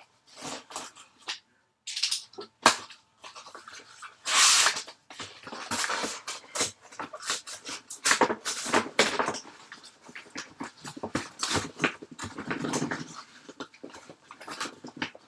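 Cardboard shipping case being cut and pulled open by hand: irregular bursts of cardboard scraping, rustling and sliding, with sharp clicks, loudest about four and a half seconds in.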